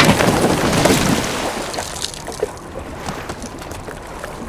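Water splashing and sloshing in a hole in lake ice after a man has fallen in. It is loud at first and dies away after about a second and a half, leaving small scattered splashes.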